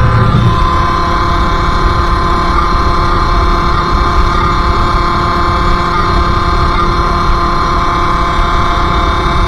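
Sherco SM-R 50's 50cc two-stroke engine running at steady, high revs while the bike is ridden, its pitch holding level throughout.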